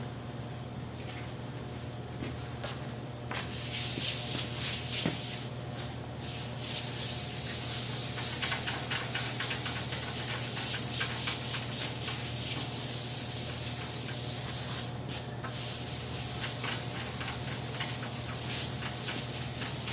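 Abrasive sanding over a wood-conditioner coat: a steady scratching hiss that starts about three seconds in, pausing briefly twice.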